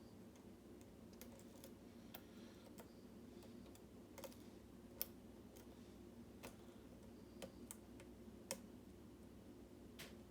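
Faint, irregular small clicks of a lock pick and tension tool working the pins inside a mortise lock cylinder, with the sharpest click about halfway through and another near the end.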